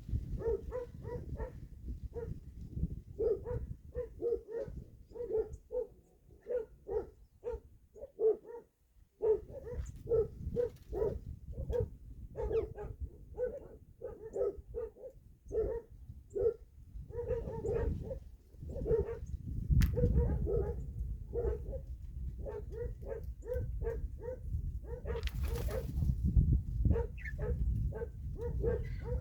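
Repeated short animal calls, about two to three a second with brief pauses, over a steady low rumble.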